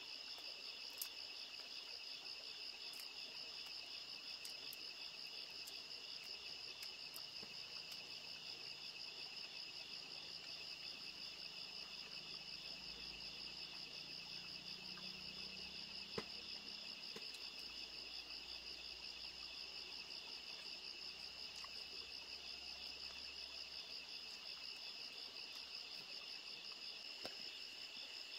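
Night chorus of crickets: a steady, high, finely pulsing chirr. A few sharp clicks now and then.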